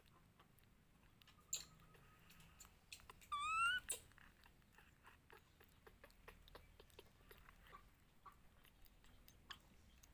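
Faint wet chewing and lapping clicks from a baby macaque eating mashed food off a plastic plate. A short run of high, rising squeaky calls, the loudest sound, comes about three and a half seconds in.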